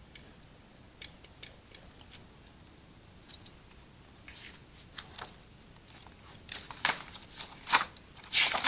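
Pen writing on paper in a planner: faint scattered clicks and short scratchy strokes, coming closer together and louder over the last two seconds.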